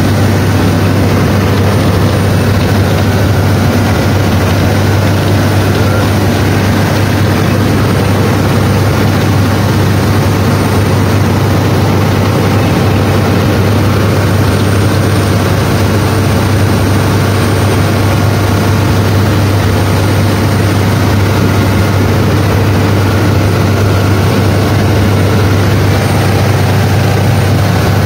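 Speedboat engine running steadily at cruising speed, a loud, even, low drone, mixed with the rushing hiss of water churned up in the wake.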